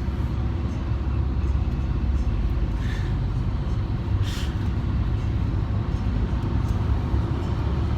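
Steady low road and engine rumble of a car driving, heard from inside the cabin, with two brief hisses about three and four seconds in.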